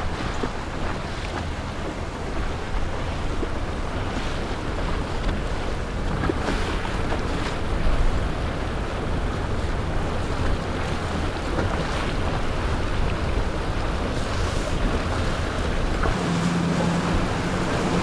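Boat engines running over choppy water, with wind noise on the microphone. A steady low hum joins about sixteen seconds in.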